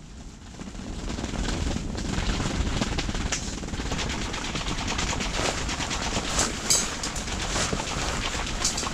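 Väinö Bunker 3 ice-fishing tent's fabric flapping and snapping in gusty storm wind: a dense, rapid rattling with sharp cracks that swells about a second in and stays loud.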